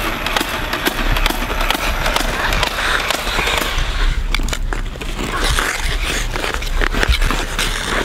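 Ice skate blades scraping and gliding on rough outdoor ice, a steady rasping noise with many small clicks and knocks.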